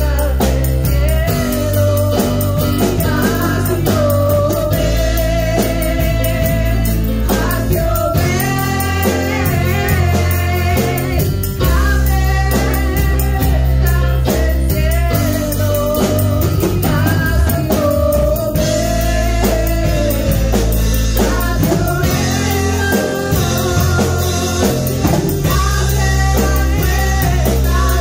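Live worship music: two women singing a melody together into microphones, backed by a band of keyboard, electric guitar and drums with a heavy, sustained bass underneath, amplified through the room's speakers.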